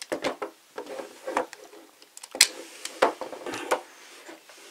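Hard plastic toy parts, a sentai belt buckle and Nin Shuriken, being handled: a string of sharp clicks and knocks with rubbing between them, the loudest knock about halfway through.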